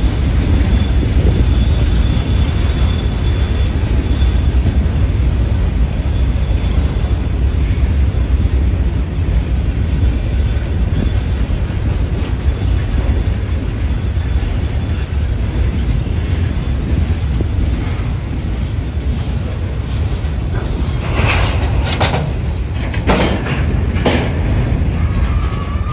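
Freight cars of a Union Pacific local train rolling past close by: a steady rumble of steel wheels on rail. Several sharp clanks come near the end, about four within three seconds.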